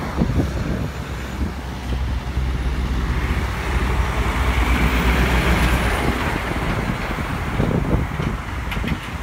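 MAN articulated lorry driving past close by: a deep diesel engine rumble with tyre and road hiss, loudest about halfway through as the cab draws level.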